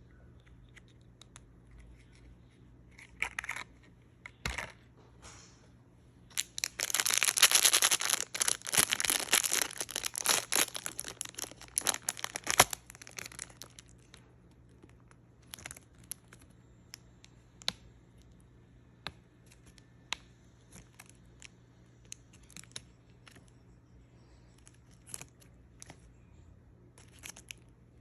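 Doll packaging being torn open and crinkled by hand: a long spell of tearing and rustling about a quarter of the way in, then scattered light clicks and rustles of handling.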